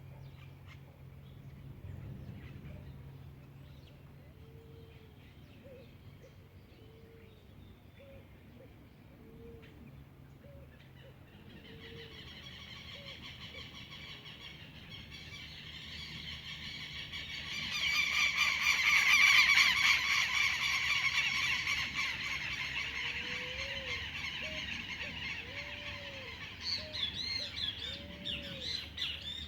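Many birds calling together in a dense chattering chorus that builds from about twelve seconds in, is loudest a few seconds later and then thins out. Short low call notes sound underneath at intervals.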